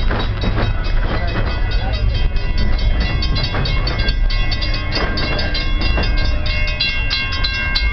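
Passenger train car rolling along the track, heard from the rear of the train: a steady low rumble with rapid clicking of the wheels on the rails, and a steady high squeal growing louder over the second half.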